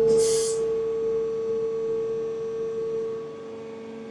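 Steady high-pitched hum of the hydraulic ground cart and powered-up aircraft while the nose landing gear is lowered slowly on low hydraulic flow, with a short hiss right at the start. The hum drops a little in level about three seconds in.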